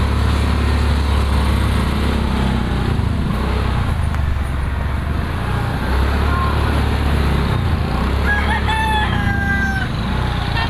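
Motorcycle engine running with a steady low drone in slow street traffic. A rooster crows once, about eight seconds in.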